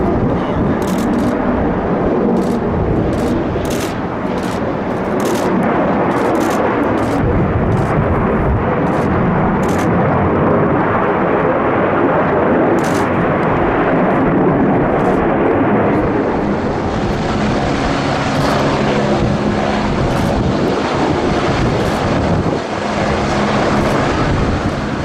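Jet noise from a Lockheed Martin F-22 Raptor's twin Pratt & Whitney F119 turbofans at takeoff power as it rolls and lifts off: a loud, steady rushing noise, with short crackles over the top in the first part.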